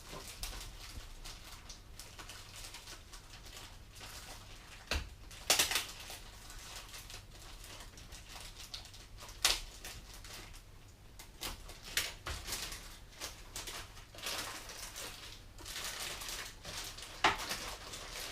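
Model airplane kit parts being unpacked by hand: scattered rustles of packaging and sharp light clicks and knocks, loudest a few times, over a faint steady low hum.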